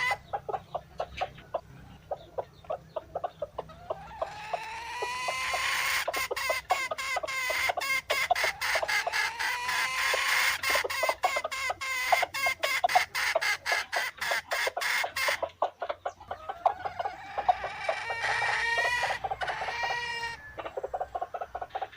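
Dong Tao chickens clucking, many rapid short clucks with overlapping drawn-out calls. It grows louder and busier a few seconds in, eases off briefly past the middle, then swells again near the end.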